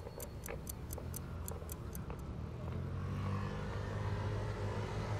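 Watch ticking fast, about five ticks a second, fading out about two seconds in while a low, steady mechanical rumble swells up and takes over.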